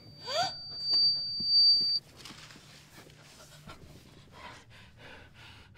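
A high, steady ringing tone that gets louder and then cuts off suddenly about two seconds in, with a short rising sweep at its start. It is followed by a woman's quiet, frightened panting, about two breaths a second.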